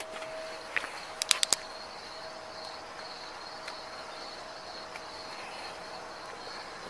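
Insects chirping in a steady high-pitched drone, with a quick run of four sharp clicks about a second in.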